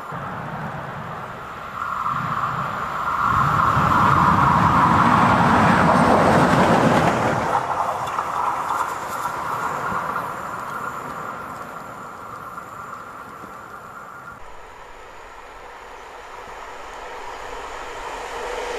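A train passing close by, with a low rumble and a steady high whine. It swells to its loudest about four to seven seconds in, then fades away. Near the end another locomotive can be heard starting to approach.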